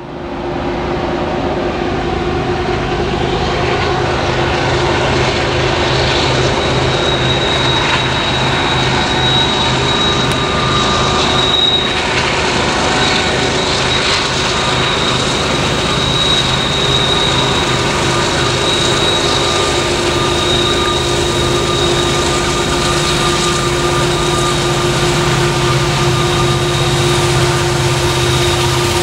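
Norfolk Southern freight train's diesel locomotives running past, a loud steady engine drone with a thin high whine over it. It comes up quickly in the first second and then holds.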